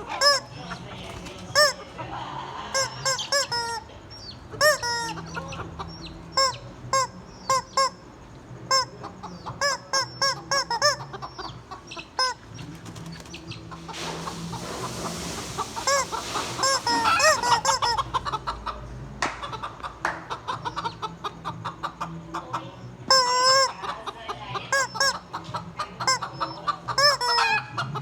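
Chickens clucking in many short, arched calls that follow one another irregularly, with a noisy rasping stretch about halfway through.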